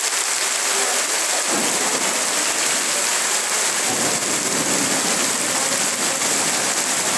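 Heavy tropical downpour: dense, steady hiss of rain pouring onto grass, paths and trees. A low rumble joins in about a second and a half in and eases off after a couple of seconds.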